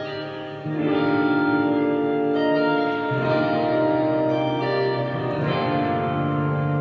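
Tagima TW-61 electric guitar playing long sustained chords through ambient reverb and shimmer effects, so it sounds like an organ pad. The chord changes about a second in, again near the middle, and once more near the end.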